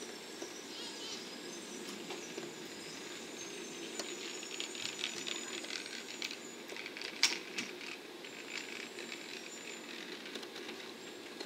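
923-series Doctor Yellow Shinkansen inspection train moving slowly and distantly: a faint thin high wheel squeal and clusters of light clicks from the wheels on the track, with one sharp click about seven seconds in, over a steady low hum.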